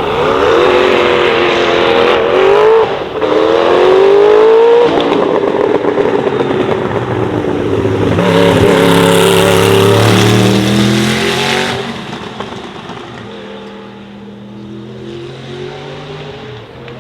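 1989 Sauber Mercedes C9's turbocharged 5.0-litre V8 at full throttle, engine pitch rising and dropping at two quick upshifts in the first five seconds. It stays loud as the car passes, then fades as it drives off.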